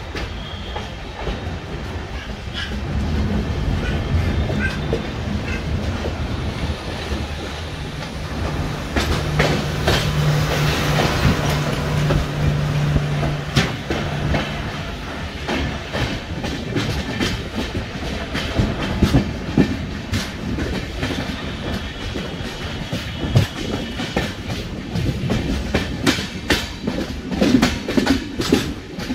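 Express passenger train running along the track, heard from a coach: a steady rumble with the clickety-clack of wheels over rail joints, the clicks coming thicker near the end. A low steady hum joins for a few seconds near the middle.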